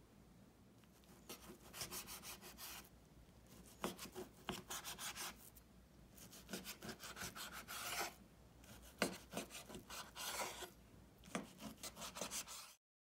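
Chef's knife slicing thin raw beef on a cutting board: a run of rasping back-and-forth strokes, each as the blade draws through the meat and scrapes the board, cutting off suddenly near the end.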